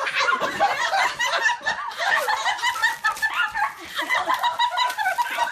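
People laughing: a long, unbroken run of quick, high-pitched laughs.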